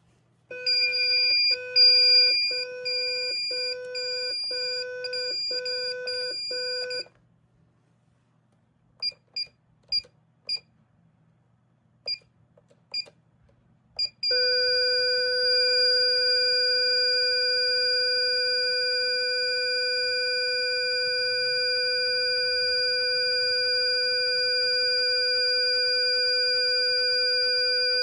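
Intruder alarm system's electronic sounder: a pulsing beep tone for about six seconds, then a few short single beeps, then a steady continuous tone from about halfway through.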